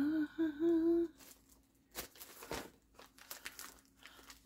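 A woman humming a short wavering note that stops about a second in, followed by scattered crinkling and rustling of packaging as items are pulled out of a shopping bag.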